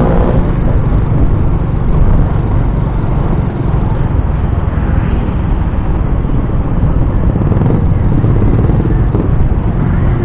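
Riding on a motor scooter: steady, loud wind noise on the microphone over the scooter's running engine and tyre noise.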